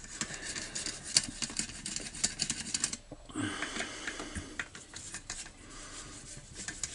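Flat-blade screwdriver turning the screws that hold the carburettor on a four-stroke string trimmer: a string of small, irregular metal clicks and scrapes, with a short break about three seconds in.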